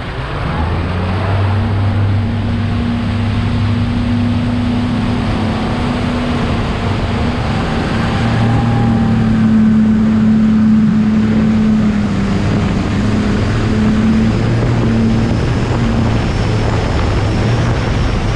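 Fishing boat's outboard motor running steadily while under way, a low drone that wavers slightly in pitch, with wind on the microphone.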